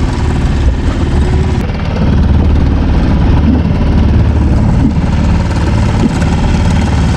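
Boat's outboard motor running steadily at trolling speed, a low drone that grows a little louder about two seconds in.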